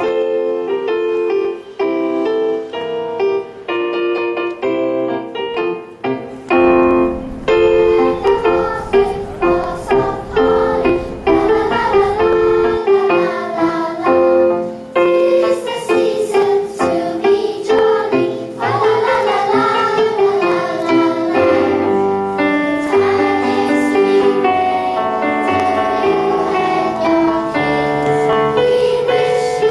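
Children's choir singing with electronic keyboard accompaniment.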